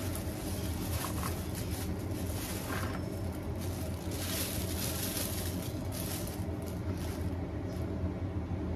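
A thin plastic bag crinkling as snap peas are shaken out of it, loudest about four to five seconds in, over a steady low hum.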